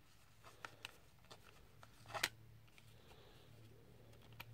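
Faint clicks and handling of a plastic Blu-ray case and its discs as they are lifted from and pressed onto the disc hubs, with the clearest clicks about two seconds in. A faint low hum runs underneath.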